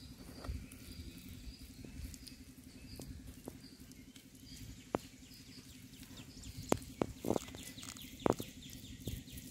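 Hands working thick wet masala paste into a whole raw chicken: soft squishing and handling noise with several sharp sticky smacks, loudest in the second half. A steady low hum and repeated high chirping sit behind it.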